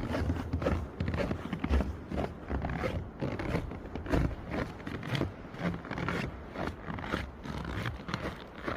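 Strong, gusty winter wind buffeting the microphone: a heavy rumble that swells and drops, with rapid irregular crackling and flapping on top.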